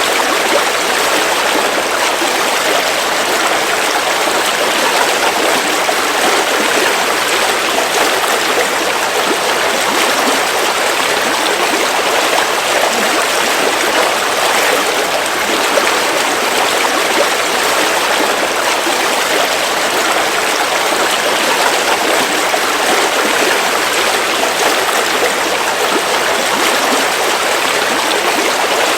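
A shallow river running steadily over rocks, a continuous loud rush of water.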